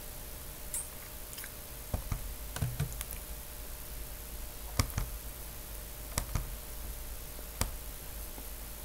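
Computer mouse clicking: about ten short, sharp clicks at irregular intervals, some in quick pairs, over a steady low hum.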